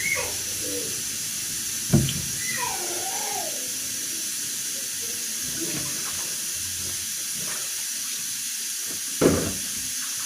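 Water sloshing as tomatoes are washed by hand in a basin, with two sharp knocks, about two seconds in and near the end, over a steady high hiss.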